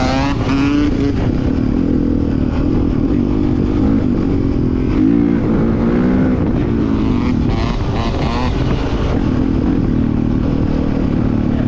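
Dirt bike engine running hard while being ridden, its pitch rising and falling repeatedly with the throttle.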